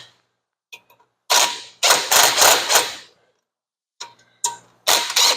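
Ratchet wrench clicking in quick strokes, a run of about six lasting nearly two seconds, then a few more near the end, as bolts are backed off a spring-loaded Borg clutch from a 1920 Nash.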